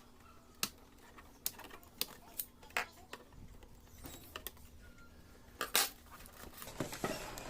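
Scattered small clicks and taps of plastic and metal as a laptop's back panel is worked loose and handled, about eight separate clicks, the loudest near the end.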